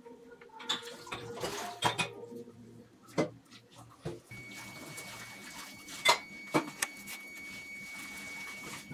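A handful of sharp, separate taps and clinks of small metal tools, a craft knife and a steel blade piece, handled and set down on a hardboard work surface. A faint steady high whine joins about halfway through.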